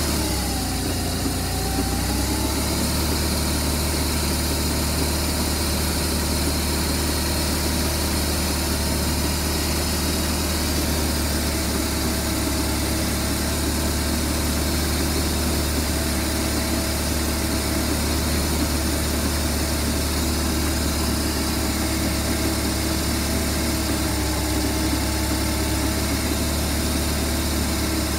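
2007 BMW R1200RT boxer-twin engine running steadily in second gear at low road speed; its pitch sinks slightly in the first couple of seconds, then holds steady.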